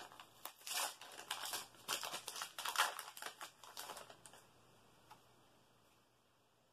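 Foil booster pack wrapper crinkling as it is torn open by hand, a dense run of crackles and clicks for about four seconds that then stops.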